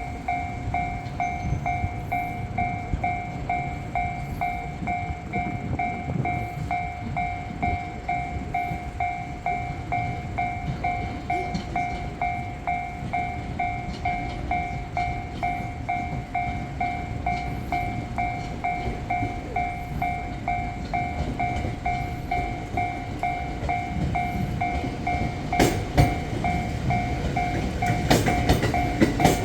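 Level-crossing warning bell ringing in a steady, even rhythm while a train rumbles past, with a few sharp wheel clacks near the end.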